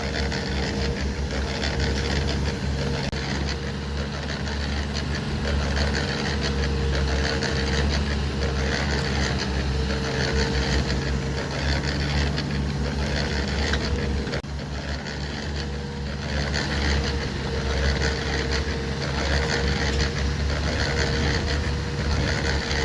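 Diesel engine of a heavy earthmoving machine running steadily under load, a low drone with a thin steady whine over it, easing briefly about two-thirds of the way through.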